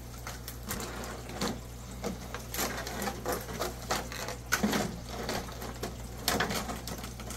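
Stiff clear plastic packaging trays crackling and clicking irregularly as they are lifted off and handled, with a few louder clicks late on.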